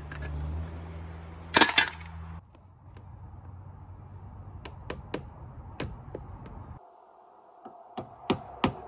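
Hammer striking a chisel against fittings on a fibreglass boat transom: sharp taps start near the end and quicken to about three a second. Earlier come one loud knock and a few light clicks over a low hum.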